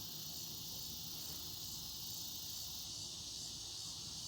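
Faint, steady high-pitched insect chorus in the evening, a continuous even buzz.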